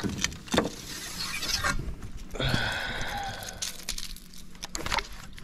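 Fishing tackle being handled: a hard-plastic jerkbait on a baitcasting rod and reel, making a run of small clicks and clinks, with a brief rattly patch near the middle.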